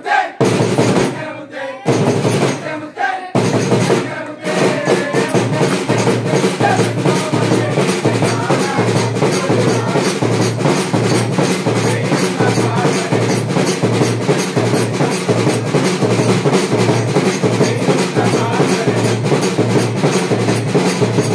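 Christmas carol band music driven by a fast, steady drum beat, with a few short breaks in the first four seconds before it runs on without pause.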